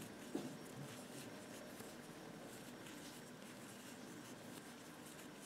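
Faint scratching and rustling of yarn being worked with a metal crochet hook, as single crochets are made into a magic ring, with a light tick about half a second in.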